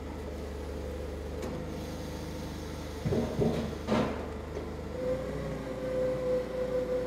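Clark forklift engine running steadily while it moves and sets down a hydroseeder unit, with metal clanks and creaks about three to four seconds in. A steady whine grows stronger about five seconds in.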